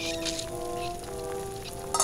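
Water boiling hard in a pot, with an even bubbling patter. Over it plays background music of held notes that change pitch every half second or so.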